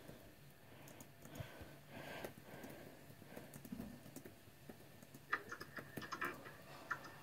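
Laptop keyboard being typed on: faint, irregular key clicks, coming faster in a burst near the end.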